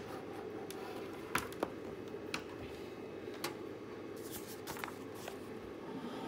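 Handling noise on a tabletop: a sheet of paper and test leads being moved about, with about half a dozen light clicks and taps over a steady low hum.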